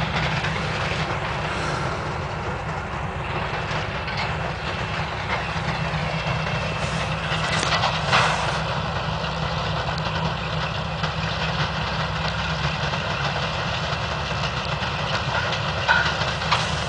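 Heavy farm machinery running steadily, with its engine working under a constant mechanical noise. There is a sharp noise about 8 seconds in, and after that a faint high whine.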